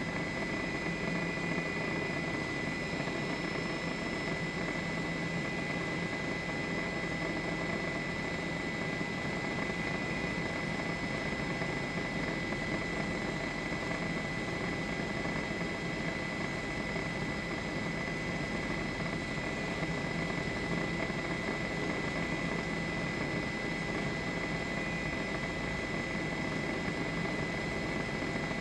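Steady helicopter engine and rotor noise with a high, steady whine.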